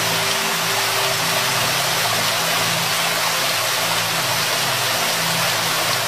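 Waterfall rushing, a steady even roar of falling water, with a low steady hum underneath.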